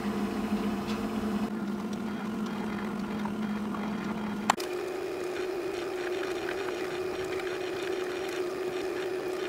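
Stepper motors of the Gregorian Scribulator, a steampunk date-writing machine, running with a steady hum. A sharp click comes about four and a half seconds in, after which the hum is higher-pitched.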